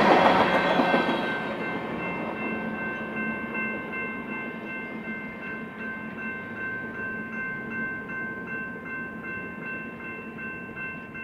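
Railroad crossing warning bell ringing in steady repeated strokes, over the rumble of a departing coal train's hopper cars, which fades away over the first two seconds.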